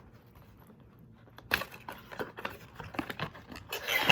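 Packaging rustling and crinkling as a gift box is opened by hand, starting about a second and a half in and loudest near the end.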